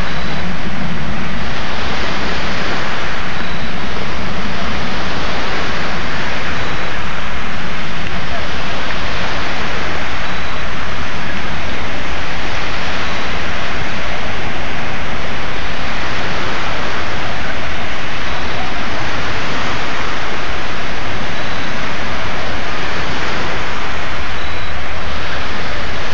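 Loud, steady rushing of wind and waves at the shoreline, an even noise that never breaks or changes level.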